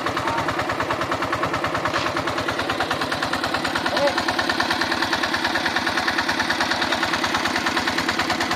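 Diesel water-pump engine running steadily, an even rapid chugging, as it pumps water to irrigate a rice field.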